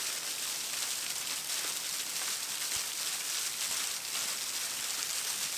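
Steady, even rush of sea waves washing on the shore.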